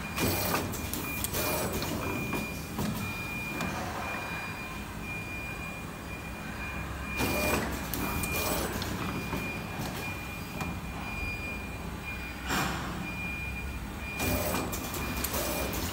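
Automatic PET blow moulding machine running: a steady mechanical hum with a constant high whine, broken every few seconds by short, sharp hisses of compressed air from its pneumatic cylinders and blow valves.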